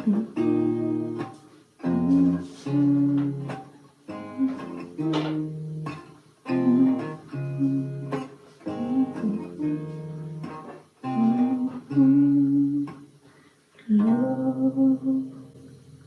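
Acoustic guitar strumming the closing chords of a song, each strum dying away before the next. A final chord about fourteen seconds in rings out and fades away.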